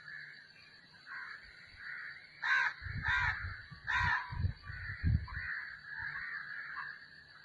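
A bird calling repeatedly with harsh calls, three louder ones coming close together about two and a half to four seconds in, among softer calls. A low rumble sounds under the loud calls.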